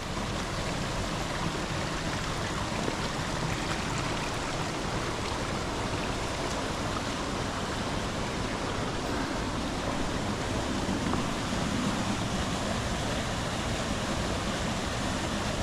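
Several waterfalls pouring into a rocky canyon: a steady, even rush of falling water.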